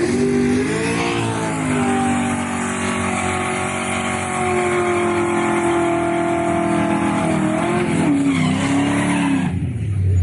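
Car tires squealing in a long skid over engine noise, a sustained wavering squeal that wobbles in pitch near the end and stops about nine and a half seconds in, leaving a lower rumble.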